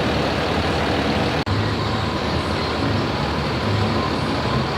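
Tour bus engine running steadily with a low rumble, with a momentary break about a second and a half in.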